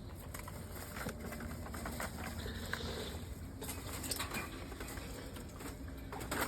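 Scattered light scuffs, clicks and rustling of people creeping and shifting their footing, over a steady low rumble.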